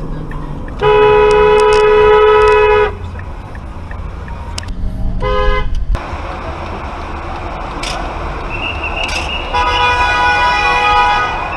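Car horn honking: one long steady blast of about two seconds, a short toot around five seconds in, and another honk of about a second and a half near the end, over steady road noise.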